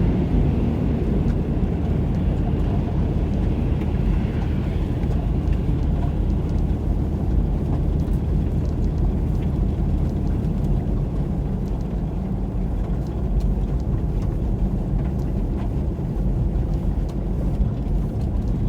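Road noise inside a car's cabin while driving on a snow-covered road: a steady low rumble of tyres and engine.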